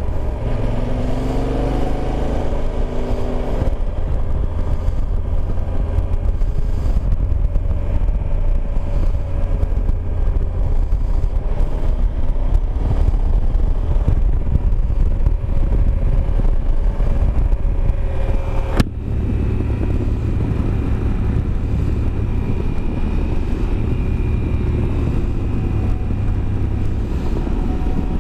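Yamaha Super Ténéré's parallel-twin engine running at road speed under wind rush, rising in pitch in the first few seconds as the bike accelerates. A single sharp click comes about two-thirds of the way through.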